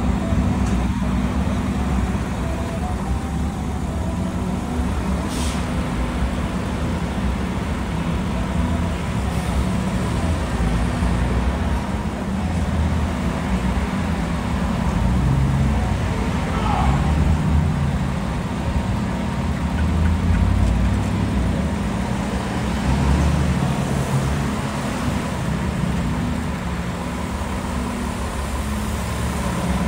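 Tower ladder fire truck's diesel engine idling steadily, a continuous low rumble.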